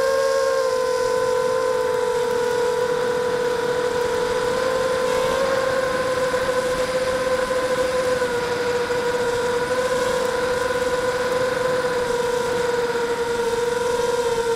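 Brushless motors and propellers of a 260-size FPV quadcopter whining steadily in flight, close to the onboard camera's microphone, the pitch wavering slightly with the throttle.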